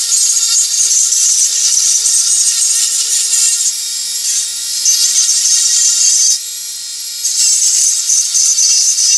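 Dremel 4000 rotary tool turning a flex shaft, its Typhoon carbide burr grinding into wood with a steady whine and a high, rasping hiss. The cutting hiss drops away briefly about six and a half seconds in as the burr lifts off the wood, then comes back.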